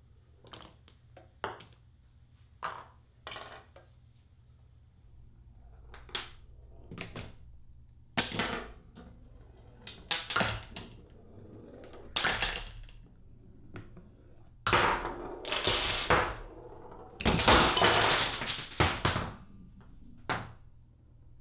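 Chain-reaction contraption on a wooden table: a string of small knocks, clicks and clatters as balls, wooden sticks and small boxes tip, fall and roll. From about eight seconds in come longer rattling runs, and the clatter is busiest and loudest from about fifteen to nineteen seconds.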